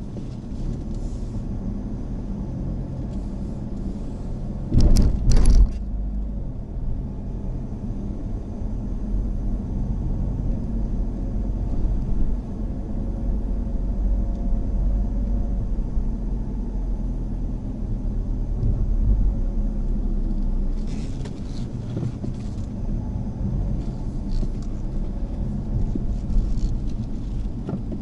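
Mazda Axela Sport being driven: a steady low engine and road rumble, with two short, loud knocks about five seconds in.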